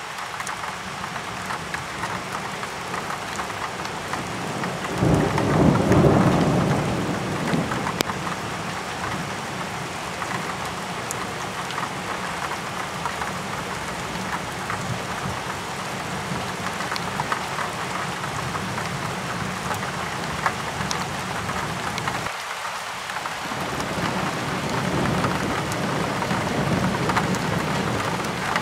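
Thunderstorm with steady rain falling throughout. About five seconds in, a roll of thunder rumbles, peaks and fades away over several seconds.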